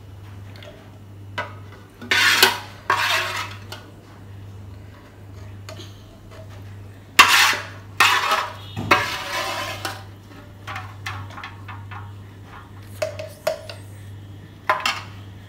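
Long steel spoon scraping and clinking against an aluminium pot as thick tomato sauce is spooned into a glass jar, in irregular bursts with short clicks between them.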